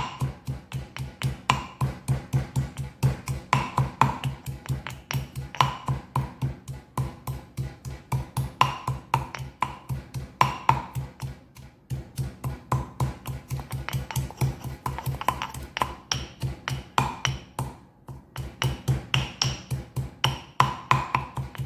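A stone pestle pounding in a stone mortar in a quick, steady rhythm of about four strokes a second. Each stroke gives a dull thud with a sharp click. The pounding pauses briefly twice.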